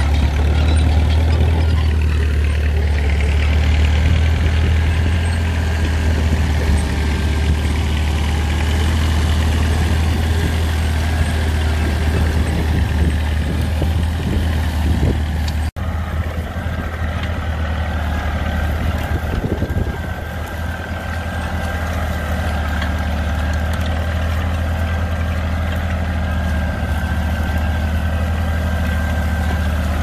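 Caterpillar D2 crawler tractor's diesel engine running steadily under load as it pulls a trailed disc plough through stubble. After a sudden cut about halfway through, a Kubota compact tractor's engine running steadily with a thin high whine as it pulls a single-furrow mouldboard plough.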